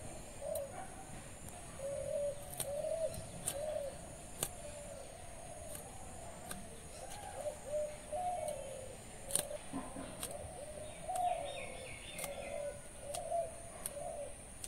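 Green beans being cut on a bonti blade: sharp clicks scattered through, as pods are pushed through the blade. Under them, a bird gives low cooing calls over and over in short dipping phrases.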